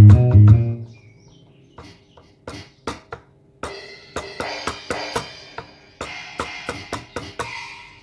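Boss Dr. Rhythm DR-670 drum machine playing its drum sounds. A loud low bass tone sounds for the first second. Scattered single drum hits follow, then from about three and a half seconds in a busier run of kit hits with cymbal and hi-hat.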